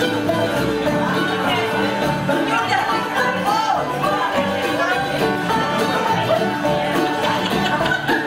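Lively dance music with a steady beat, playing for a maypole dance.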